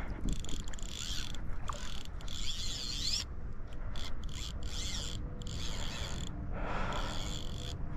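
Fly reel's click-and-pawl drag ratcheting in spurts as line runs on and off the spool while a hooked steelhead is played on a 5-weight rod, over a steady low rumble.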